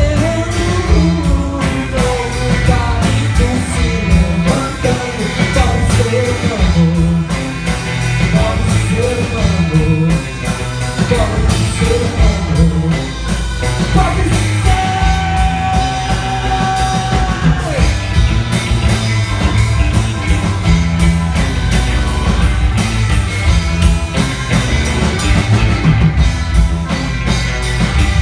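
A rock band playing live, with guitar, bass and drums, and a singer over them. About halfway through, a long note is held for roughly three seconds.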